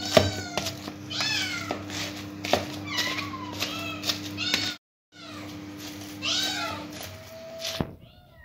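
A cat meowing several times, drawn-out arching meows, over sharp clicks of a fork against a plastic bowl as food is stirred, with a steady low hum behind. The sound drops out briefly about halfway through.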